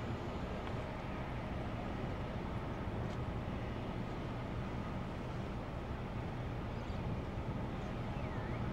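Steady low rumble and hum of a berthed cruise ship's machinery, unchanging in level.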